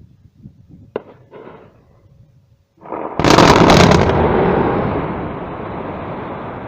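Mass production blast in an open-pit coal mine: after a fairly quiet start, a sudden loud boom about three seconds in, followed by a long rumble that slowly fades.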